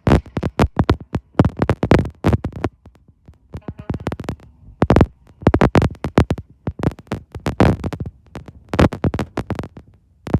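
Electronic music with a fast, busy drum-machine beat.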